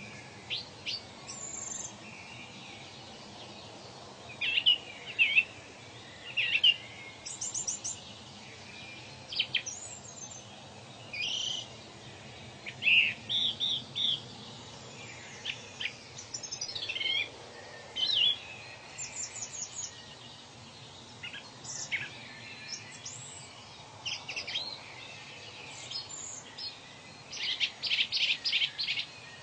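Birds chirping and singing in turn: short high calls, quick trills and a fast run of repeated notes near the end, over a steady background hiss.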